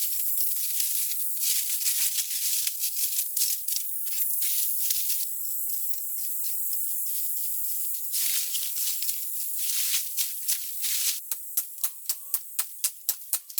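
Dry rustling and crackling with many small clicks. About eleven seconds in it turns into a quick, even run of sharp ticks, about four or five a second.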